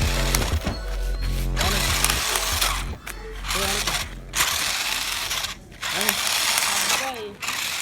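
Toy RC car's small electric motor and gears running in several spells of a second or two, with short breaks between them and the pitch sliding up and down.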